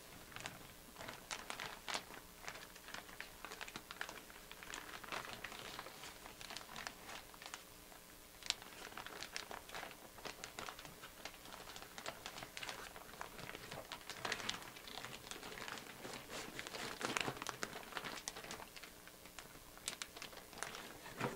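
Soft crinkling and rustling of packaging as an autographed hockey jersey is folded back into its cardboard box, with small irregular clicks and knocks from the box throughout, a little louder in the second half.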